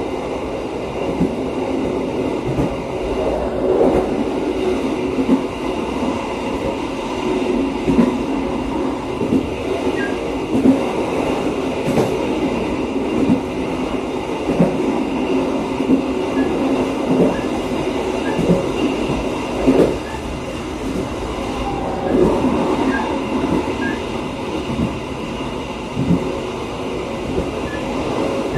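Gayabaru Malam Selatan passenger train running along the track, heard from inside the rear of its last carriage. The wheels rumble steadily on the rails, with irregular knocks and rattles from the wheels and car body.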